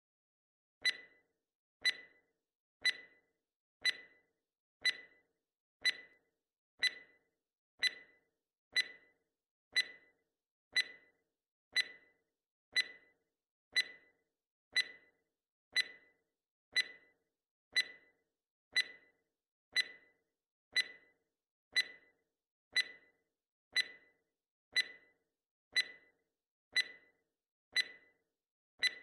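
Countdown timer sound effect ticking once a second: a short, sharp click with a brief ringing tone, repeated evenly, starting about a second in.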